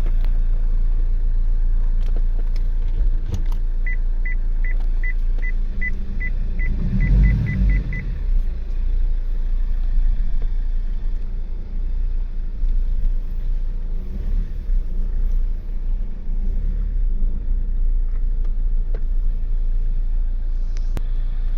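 Vauxhall Insignia engine running with a steady low rumble, heard from inside the car, swelling briefly about seven seconds in. Around four seconds in, a run of about a dozen short high beeps from the car's warning system comes closer together toward the end.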